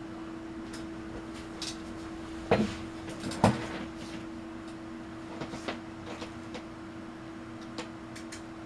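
Steady electrical hum from an electronics test bench's AC setup, with two loud sharp clicks about a second apart near the middle and a few fainter ticks after them.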